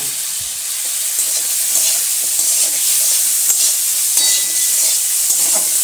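Tomatoes, onion and crushed garlic sizzling in hot oil in a metal kadai, a steady loud frying hiss, with a metal spatula scraping and clicking against the pan as they are stirred.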